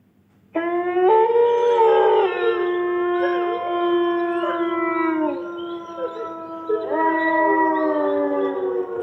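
Dire wolf sound effect: several wolf howls overlapping in a chorus, starting about half a second in. The howls are long held notes, some sliding down in pitch, with a fresh howl joining about seven seconds in.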